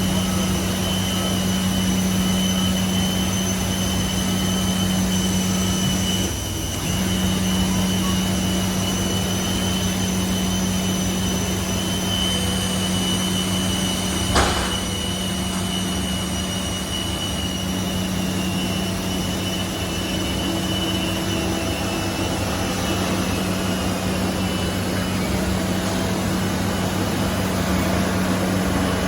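Steady machinery drone at a parked Boeing 747: a low hum with a constant high whine. A brief drop about six seconds in, and a single sharp knock about halfway through.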